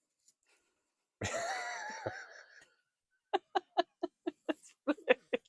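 A person laughing: a high, wavering voiced sound for about a second, then, after a short pause, a run of short giggles at about four a second.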